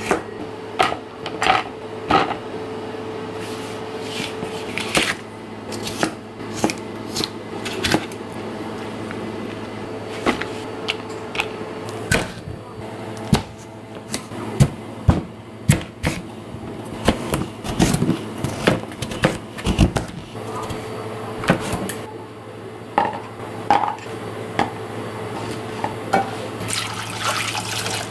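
Kitchen knife knocking against a plastic cutting board in irregular strokes as kombu and then kabocha squash are cut, over a steady low hum. Near the end, water starts pouring into a pot.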